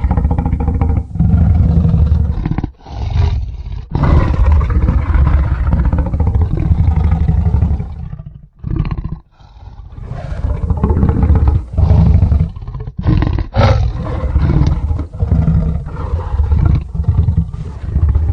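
Animal roar sound effects of the big-cat kind: a series of loud, harsh roars one after another, each lasting one to several seconds, with short breaks between them.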